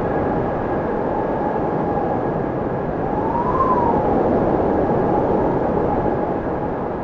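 FPV quadcopter's brushless motors and propellers heard from the onboard camera: a motor whine that rises and falls with the throttle, about three seconds in, over a steady rush of wind and prop noise.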